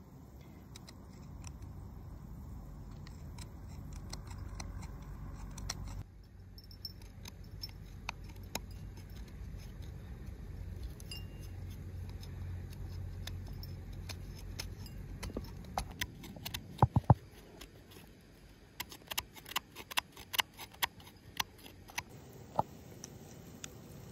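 Knife blade scraping a hard ball of dried qurut (dried yogurt), a run of short sharp scrapes and clicks that come thickest and loudest in the second half. A low outdoor rumble lies under the first part.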